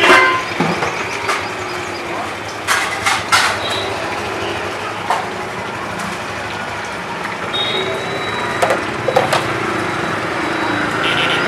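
Oil sizzling steadily in a large wok during deep-frying, with a few sharp clanks of a perforated metal skimmer against the pan, over street traffic and voices.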